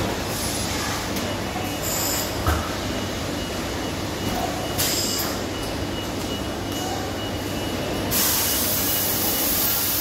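Steady rumbling background noise, with a short knock about two and a half seconds in and a louder hiss over the last two seconds.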